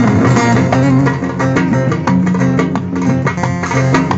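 Instrumental break in a Turkish folk song: a plucked string instrument playing quick runs of notes over a steady low accompaniment, with no singing.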